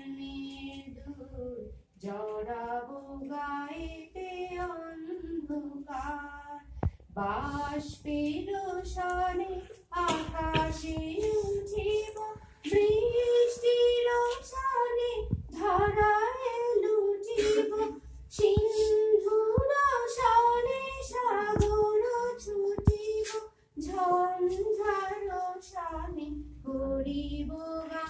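Women's voices singing a song together, with long held notes.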